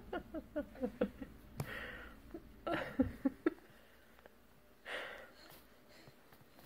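A baby's short effortful grunts, about three a second for the first few seconds, with breathy huffs between them, as he strains to push up and crawl on his tummy. Near the end only a single soft breath.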